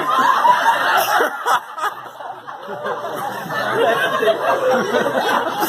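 People chuckling and laughing amid indistinct chatter.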